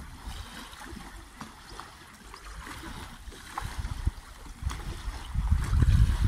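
Small lake waves lapping and trickling, with wind buffeting the microphone as a low rumble that grows much louder near the end.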